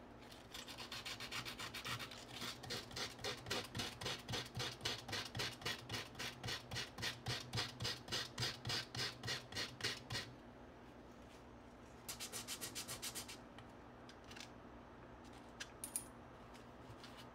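Sandpaper rubbed by hand back and forth over a thin copper strip, about three strokes a second, stopping about ten seconds in. A short, quicker bout of rubbing follows a couple of seconds later.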